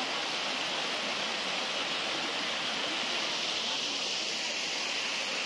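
Steady rushing of flowing water, like a mountain stream: an even hiss with no breaks or changes.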